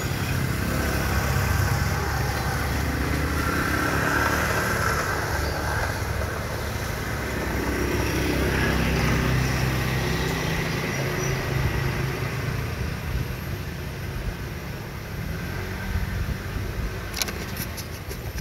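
Road traffic running steadily, with vehicle engines humming past over a low rumble. A few sharp clicks come near the end.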